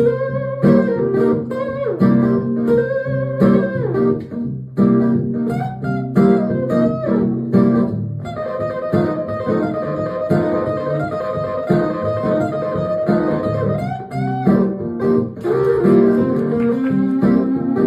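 Live blues instrumental passage led by guitar, with bending notes over a steady accompaniment and a long held note for several seconds in the middle.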